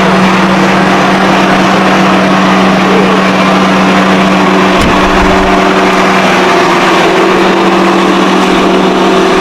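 An engine running at a steady speed, with a strong constant hum and a few fainter steady tones over even mechanical noise.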